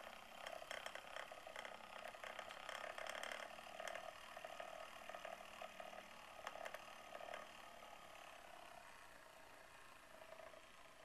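Small motor and gears inside a motorised plush toy tiger whirring with quick clicking as it moves, the clicking thinning out after about three and a half seconds.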